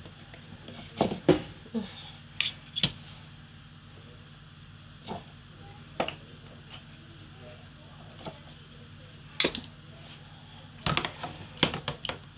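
Kitchen knife knocking and clinking against a chopping board and plastic dishes while boiled cow foot is trimmed and handled: irregular sharp clacks, bunched near the start and again near the end with a few single taps between.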